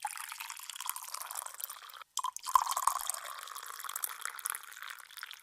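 Water splashing and dripping, a steady hiss with a brief break about two seconds in.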